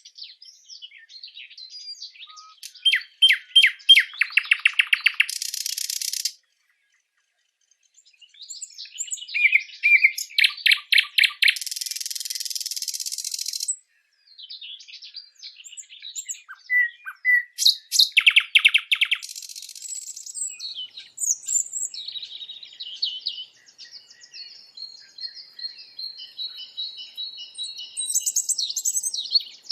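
Wild songbirds chirping and calling: fast runs of repeated high notes, harsh chattering bursts and trills. The calls break off into silence twice, about a third and halfway through.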